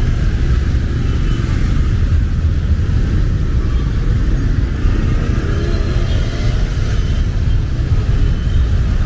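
Bus-stand traffic in heavy rain: a steady low rumble of vehicle engines under an even hiss of falling rain.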